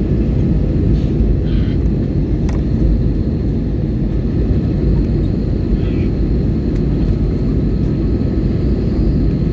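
Passenger airplane on its landing approach: a loud, steady, low rumble of jet engines and rushing air that holds even throughout.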